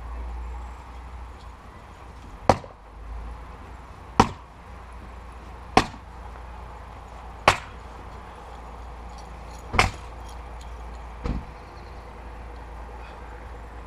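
Cyclone 2.5 kg splitting axe striking firewood rounds: six sharp chops about one and a half to two seconds apart, the last one much softer.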